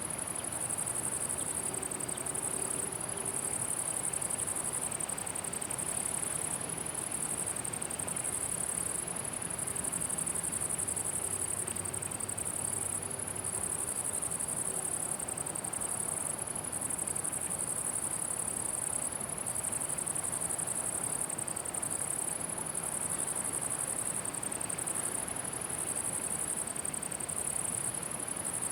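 Crickets in a summer meadow stridulating: a steady high-pitched buzz with brief breaks every two to three seconds.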